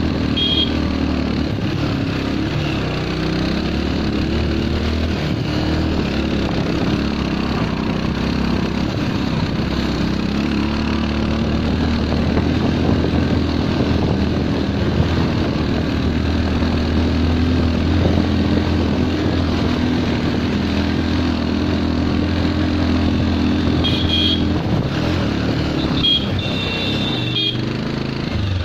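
Bajaj Pulsar motorcycle's single-cylinder four-stroke engine running steadily while riding, heard from the seat. A few brief high beeps come near the end.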